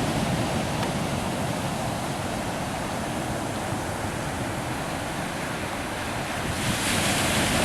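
Large Pacific Ocean waves breaking and washing up the beach: a steady rushing surf that swells louder and brighter near the end, with wind buffeting the microphone.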